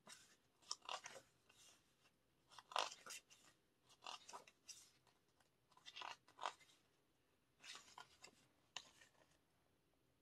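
Faint paper rustling as the pages of a photobook are turned and handled: short, irregular rustles, several a few seconds apart.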